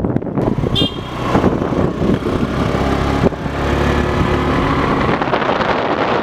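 A vehicle running on the move, its engine hum mixed with road and wind noise; a brief high-pitched tone sounds about a second in.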